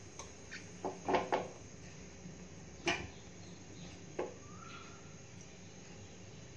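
Scattered clinks and knocks as a whole aubergine is pressed onto a lit gas burner's metal pan support and handled with a knife. There is a small cluster about a second in and the loudest knock about three seconds in.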